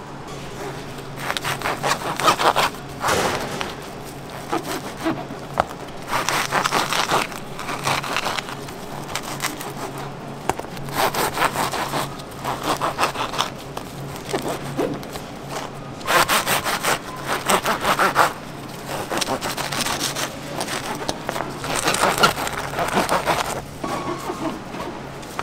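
Serrated bread knife sawing through Montreal-style bagels, in five bouts of quick back-and-forth strokes a few seconds apart, one bagel sliced after another.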